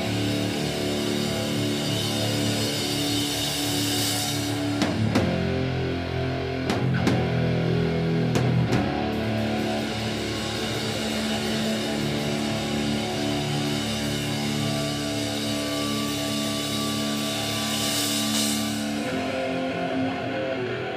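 Hardcore punk band playing live: electric guitar holding long ringing chords, with a few drum hits about five to nine seconds in and cymbal washes.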